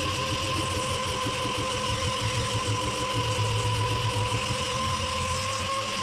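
Dual-action sander running steadily with a whine and hiss, sanding hard resin primer on a car body with a 120-grit disc.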